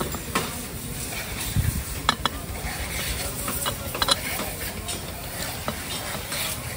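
Hand tools clicking and clinking on a motorcycle's rear sprocket and chain during a chain-and-sprocket fitting, with a handful of sharp metallic clicks spaced irregularly.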